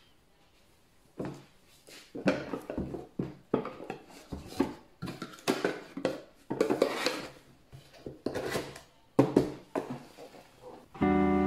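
A cardboard box of glass mugs being handled and packed up on a hard tabletop: a string of irregular knocks, clinks and scrapes, starting about a second in. Music with a guitar chord comes in just before the end.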